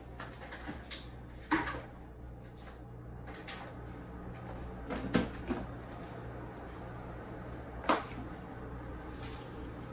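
Quiet room tone with a steady low hum, broken by three short, sharp sounds: about a second and a half in, about five seconds in and near eight seconds in.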